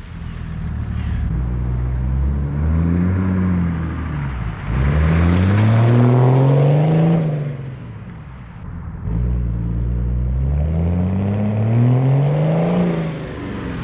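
BMW 730d E38's 3.0 inline-six diesel through a straight-piped dual exhaust, revving up three times and falling back between, each rise lasting two to three seconds.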